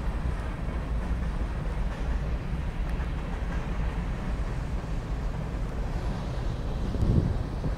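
Freight cars of a BNSF manifest train rolling past: covered hoppers and a tank car giving a steady low rumble of wheels on rail. A short, louder bump comes about seven seconds in.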